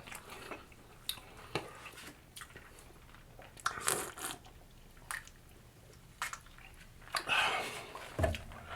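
A person biting and chewing food close to the microphone: irregular wet chewing and crunching sounds with short pauses between them, the typical sound of mukbang eating.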